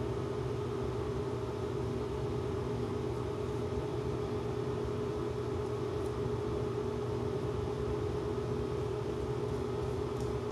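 A steady machine hum with a constant low tone over a hiss, unchanging throughout.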